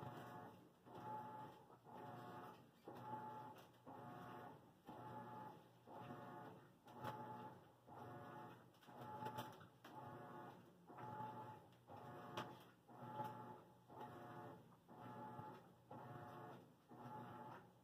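Laundry machine running, a faint mechanical whirring hum that swells and fades about once a second.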